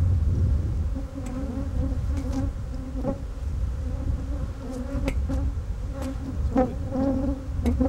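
A mass of honeybees buzzing around an opened hive and a queen excluder tray heaped with shaken bees, a steady drone that wavers slightly in pitch, with a few short clicks.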